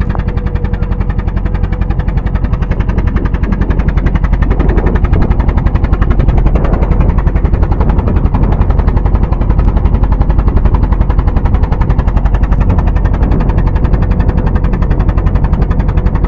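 Fishing boat's engine running close by, a loud, fast, even beat of exhaust pulses, a little louder from about four seconds in.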